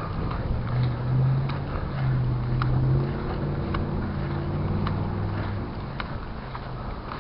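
A motor engine running at a steady pitch, swelling over the first few seconds and fading out after about five seconds, with light regular ticks alongside.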